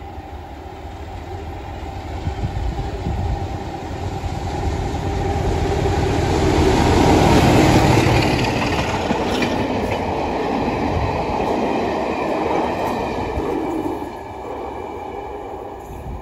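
Class 33 diesel locomotive hauling a 4TC coaching set, passing at speed. The engine and wheel noise build to a peak about seven or eight seconds in. The coaches' wheels then run by on the rails and the noise drops away about fourteen seconds in.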